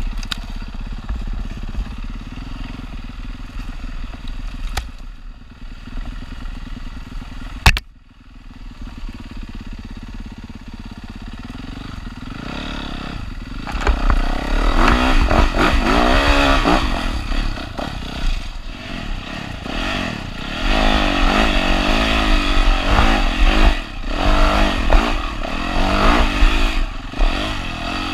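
Yamaha WR450F single-cylinder four-stroke enduro engine running at low revs for about the first twelve seconds, with one sharp knock about eight seconds in. After that it is revved hard, its pitch rising and falling over and over as the bike is ridden.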